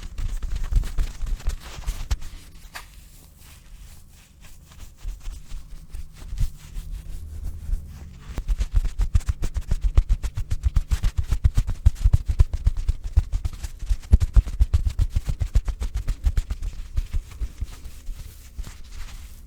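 A pillow tapped and handled fast for ASMR sounds, making dense soft thumps and crackles. It is quieter for a few seconds near the start, then settles into steady, fast tapping from about eight seconds in.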